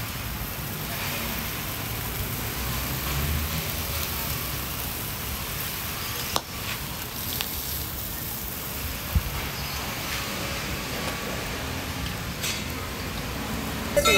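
Skewered pork barbecue sizzling over a charcoal grill, a steady hiss, with a couple of sharp clicks partway through.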